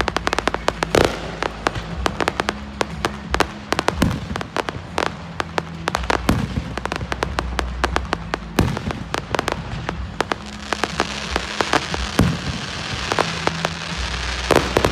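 Aerial fireworks display: shells bursting in rapid, overlapping bangs with crackling, heavier bangs about a second in and again past the middle. Near the end there is a dense crackle.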